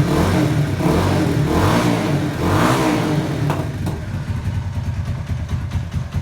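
Italika 250Z motorcycle engine revving through an Akrapovic-style aftermarket exhaust with its dB killer fitted. The throttle is blipped about three times, and the engine settles back to a steady idle about four seconds in.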